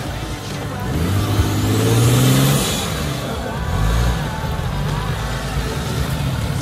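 4x4's engine revving under load on an off-road trail: it climbs to its loudest about two seconds in, eases off, and revs up again near four seconds.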